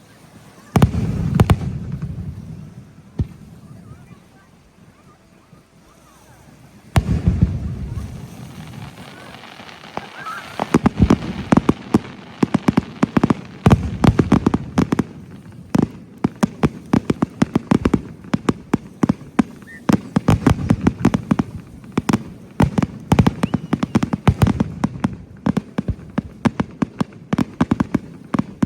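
Fireworks going off: a loud boom about a second in and another around seven seconds, each trailing off in a low rumble, then from about ten seconds a dense, rapid run of crackling pops and bangs.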